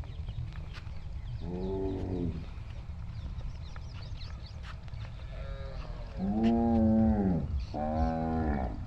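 A cow mooing: one moo about a second and a half in, a faint short one past five seconds, then two more in close succession near the end, the first of these the longest and loudest. A steady low rumble runs underneath.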